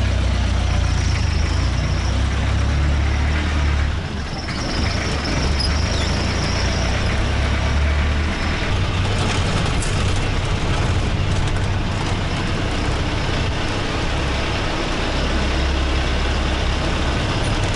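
A jeepney's diesel engine running under way, with road noise, heard from the front seat. The low engine rumble eases about four seconds in and again for a stretch midway, then picks up near the end.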